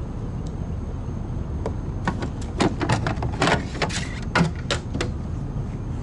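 A quick run of knocks and clatters lasting about three seconds over a steady low rumble, the loudest knock near the end of the run.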